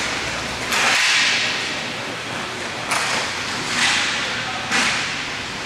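Roller hockey play: sharp slaps of sticks and puck on the rink's plastic floor, about four in a few seconds, each trailing off in the hall's echo over a steady hiss.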